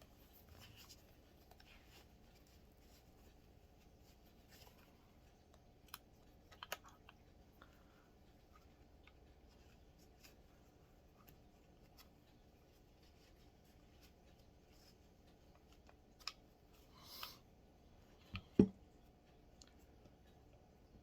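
Quiet handling of a revolver being wiped down with a cloth: a few scattered small clicks and a brief rub, then one sharp knock near the end, louder than anything else.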